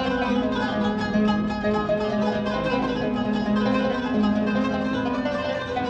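Background music: a continuous instrumental tune with plucked strings.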